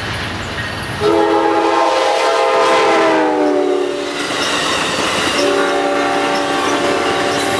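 Amtrak passenger train's multi-tone horn: a long blast about a second in that drops in pitch near its end as the lead unit passes, then a second long blast at a lower pitch about five seconds in, over the rolling rumble and clickety-clack of the passing coaches.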